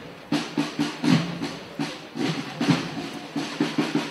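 Processional drums beating a march rhythm, about three or four strokes a second, as music for a street procession.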